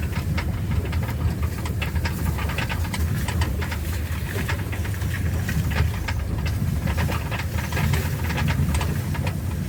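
Vehicle running, heard from inside the cab: a steady low engine and road rumble with many small rattles and knocks over it.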